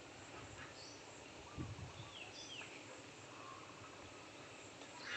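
Faint outdoor ambience with a few short, high bird chirps, and a dull low thump about a second and a half in.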